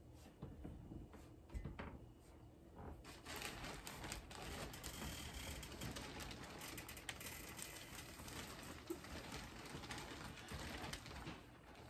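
Close rustling and crackling made of many rapid small clicks, starting about three seconds in and stopping near the end, after a few separate clicks.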